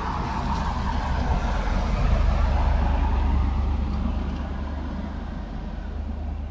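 Box truck driving past on the street, its engine and tyre noise swelling to a peak about two seconds in, then fading as it moves away.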